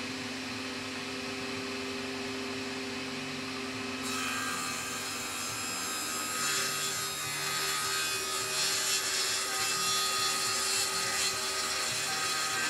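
Table saw running, then its blade cutting into a wooden board about four seconds in, making a jointing rip along the board's edge. The cutting noise grows louder from about six seconds in and carries on over the motor's steady hum.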